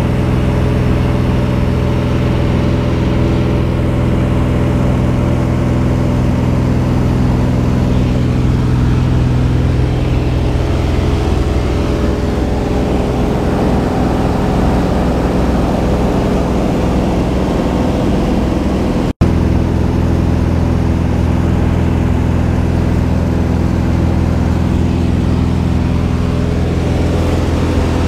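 Single-engine propeller plane's piston engine droning steadily, heard from inside the small cabin with air rushing past. The drone changes tone about ten seconds in and cuts out for an instant about two-thirds of the way through before carrying on steadily.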